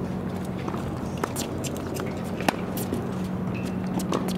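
Tennis balls being struck by rackets and bouncing on a hard court: scattered sharp pops, the loudest about halfway through, over a steady low hum.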